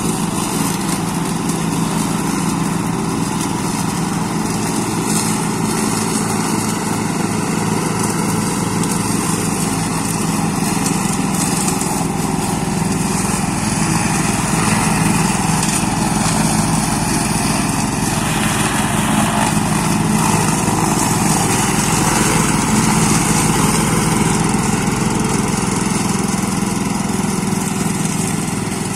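WOLF-Garten Expert Scooter Pro ride-on mower's 382cc engine running steadily while mowing, growing a little louder midway as it passes close.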